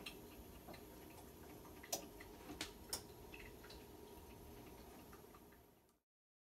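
Near silence: faint room tone with a few soft clicks about two and three seconds in, cutting off to dead silence near the end.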